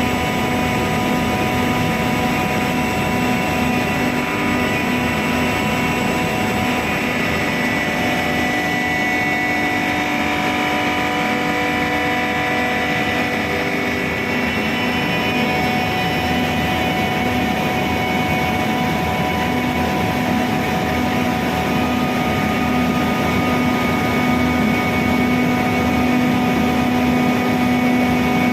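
Compressor running steadily: a continuous mechanical hum with several steady whining tones over it.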